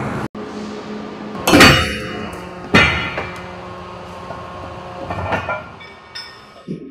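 Heavy steel anchor chain gear clanking on a ship's forecastle: a loud ringing metal clank about a second and a half in, a second one a little over a second later, then lighter knocks, over a steady machinery hum.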